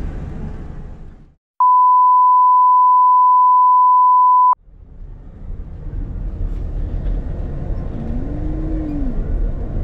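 A single steady electronic beep at one pitch, about three seconds long, edited in over a gap of silence. Vehicle rumble fades out just before it and fades back in after it stops.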